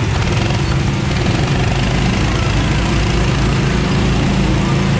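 Go-kart engines idling with a steady low drone.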